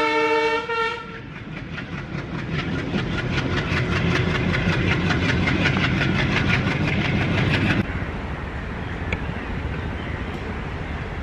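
A train horn sounds a chord of several notes for about a second. Then a diesel locomotive works hard with a loud rumble and a fast, regular beat, several strokes a second, heard from a coach window. Near eight seconds this cuts off suddenly to a quieter, steady rumble.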